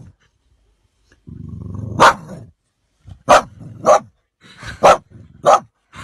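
Dog growling low for about a second, the growl building into a bark, then four more barks in quick succession.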